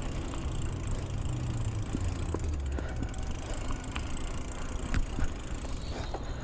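Mountain bike rolling along a dirt singletrack: tyre and bike noise with scattered short clicks and rattles over a steady low rumble.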